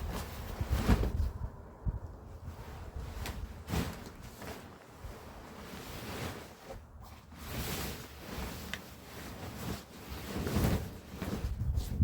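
Irregular rustling and soft knocks over a low rumble.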